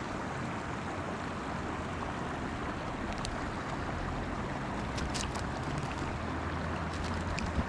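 Steady outdoor rushing of wind and moving water, with a low hum underneath. A few faint clicks come from handling as a hook is worked out of a rubber landing net.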